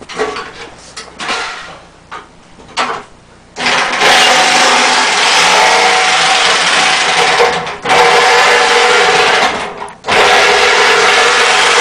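Electric power saw cutting through the vehicle's sheet-metal body: a few short bursts, then running steadily from about a third of the way in, stopping briefly twice.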